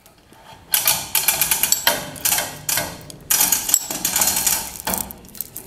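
Chain hoist being worked by hand to lift the front of an engine: a fast metallic rattle and clinking of the chain running through the hoist, in about five spells with short pauses between pulls.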